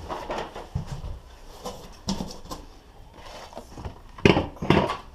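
Knocks and rustles of a spoked bicycle wheel and cardboard packing being handled, with two louder knocks about four seconds in as the wheel is picked up.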